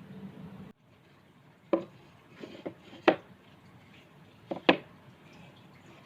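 A few sharp knocks and clicks spaced a second or more apart, from wooden workpieces and tools being handled. The background hiss cuts off abruptly just under a second in.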